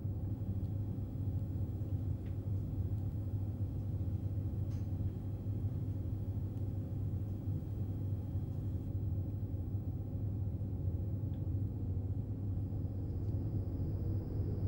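Steady low rumble, with a few faint ticks and a thin high tone coming in near the end.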